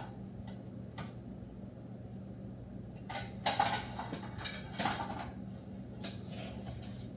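Dishes knocking and clattering as a plate is fetched and handled, with a cluster of sharp knocks about three seconds in, another near five seconds and a few lighter ones near six, over a steady low hum.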